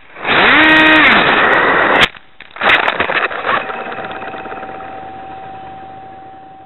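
Electric motor and propeller of a foam RC airplane, heard from its onboard camera: a whine that rises and falls in pitch over loud wind rush, then a crash into brush, with a sharp hit about two seconds in and a rough crashing noise around three seconds. After that a single steady tone remains and slowly fades.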